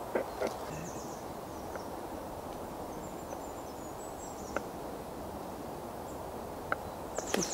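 Steady woodland background noise with faint high bird chirps, broken by two single taps of a kitchen knife on a wooden chopping board as tofu is cut, and a short louder sound near the end.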